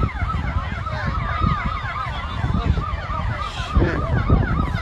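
Several emergency vehicle sirens sound together in fast rising-and-falling yelps, about three a second, over a steady low rumble.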